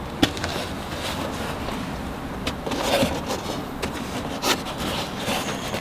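Rubbing and scraping as parts and cables are worked into place in a car trunk, with a few sharp knocks.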